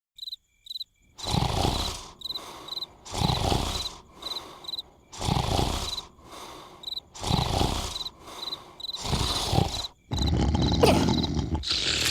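Cartoon snoring: a loud, rasping snore about every two seconds, over crickets chirping steadily. Near the end the snores give way to a denser, continuous noise.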